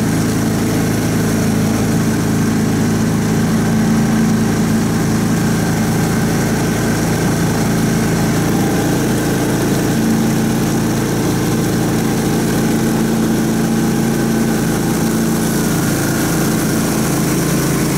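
Karakat all-terrain vehicle's engine idling steadily, heard from on board, with small shifts in its note about halfway through and near the end.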